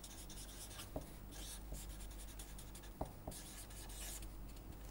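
Felt-tip marker writing on paper: faint scratching strokes, with a few small ticks about one and three seconds in.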